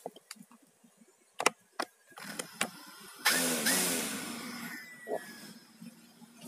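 DJI Phantom 3 Standard quadcopter's motors starting about three seconds in, the propellers spinning up to idle with a sudden whirring rush and hum that then settles and slowly fades. A few sharp clicks before the start.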